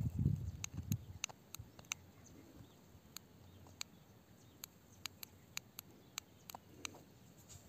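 Faint, sharp clicks at irregular spacing, about two a second, after a low rumble of handling noise in the first second.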